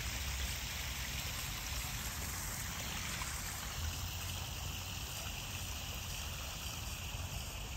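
Steady trickle of water running into a backyard koi pond.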